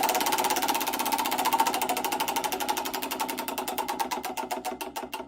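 Bugatti EB110's quad-turbo V12 engine running, its sound breaking up into a train of rapid clicks that slow to a few a second as it dies away.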